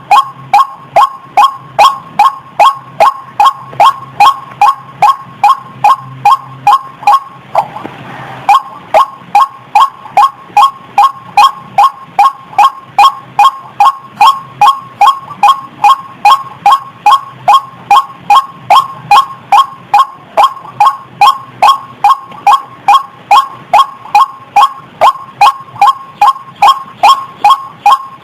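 Female white-breasted waterhen calling: a harsh, pitched 'ruak' note repeated steadily about two and a half times a second. The run breaks once for about a second, with a burst of hiss, about eight seconds in.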